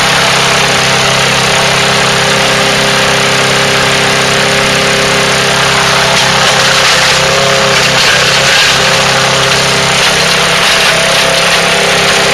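Craftsman gasoline push mower engine running steadily at high speed, its blade spinning under the deck; the engine's pitch wavers briefly about midway.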